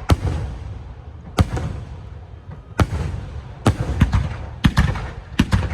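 Sky-shot aerial fireworks going off: about eight sharp bangs at uneven intervals, some in quick pairs, each trailing off in a low rumble.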